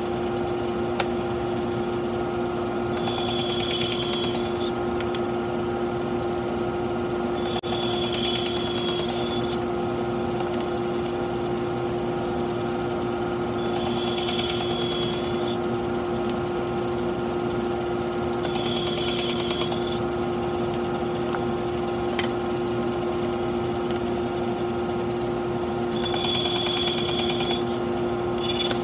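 Bandsaw running steadily with a constant motor hum, cutting five times into a wooden tread piece; each cut brings a high-pitched whine lasting about a second and a half.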